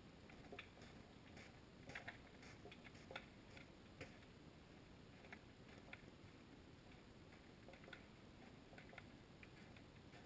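Near silence underwater, heard through a camera's waterproof housing: a low hiss with faint, irregular clicks and ticks, about one or two a second.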